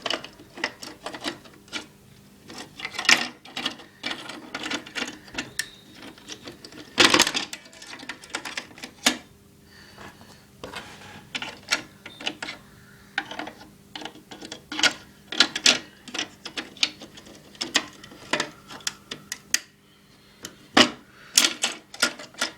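Plastic parts of a Nerf Long-Strike blaster clicking, tapping and knocking as they are handled and pushed into the open shell, with a louder knock about seven seconds in and another near the end. A faint steady hum lies underneath.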